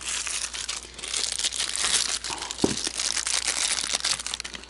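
Plastic packaging crinkling and rustling as a tweeter is handled, with a brief squeak about two and a half seconds in.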